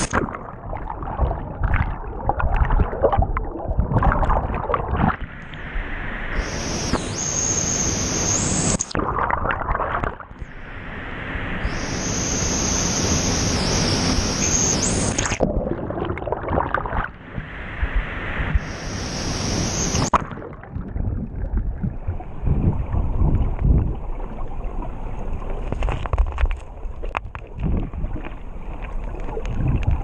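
Churning waterfall plunge pool heard by a camera dipping in and out of the water. It alternates between the full hissing rush of the falling water above the surface and a muffled underwater rumble with bubbling and low thuds. From about two-thirds of the way through it stays muffled.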